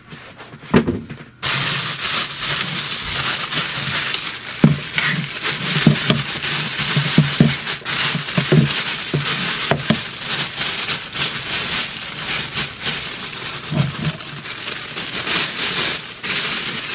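Clear plastic bag crinkling and rustling loudly as it is handled and pulled off a boxed item. A few light knocks come first, and the crinkling starts about a second and a half in.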